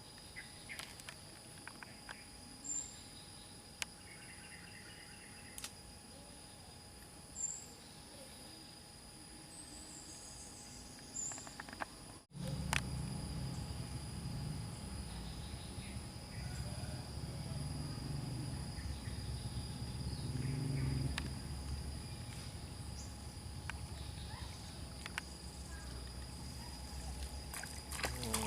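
Steady high insect drone, with a few short bird chirps in the first half. After a cut about twelve seconds in, a louder low rumble joins.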